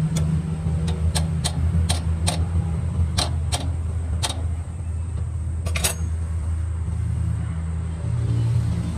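Steady low drone of running machinery under about ten sharp metallic clicks and taps in the first six seconds, as a welding electrode is handled and clamped into its holder.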